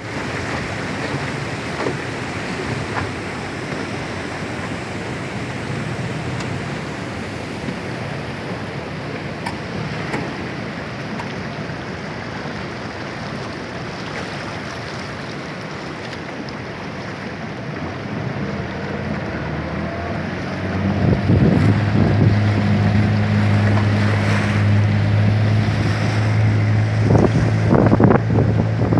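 Steady roar of rushing water at a river waterfall, with wind buffeting the microphone. About two-thirds of the way through, an engine's steady low hum comes in and grows louder, with gusts knocking on the microphone near the end.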